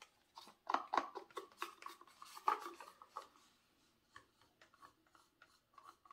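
Wooden stir stick scraping the last acrylic paint out of a cup: an irregular run of short scrapes and clicks, louder in the first three seconds, then fainter and quicker from about four seconds on.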